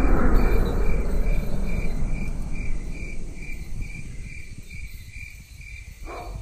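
Rumble of a simulated aircraft flyby fading away over about five seconds, with crickets chirping steadily at about three chirps a second.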